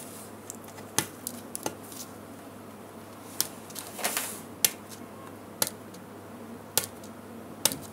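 Bitumen self-adhesive tape being peeled slowly off paper, giving about eight scattered sharp clicks and crackles as the sticky bitumen pulls away. The adhesive grips hard and leaves residue behind.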